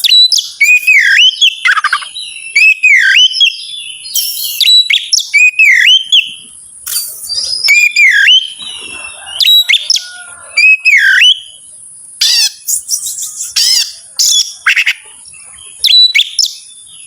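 Oriental magpie-robin (kacer) singing loudly: a swooping whistled note that dips and rises, repeated about once a second, then a run of varied sharp notes and chirps in the second half. A steady high-pitched hiss runs underneath.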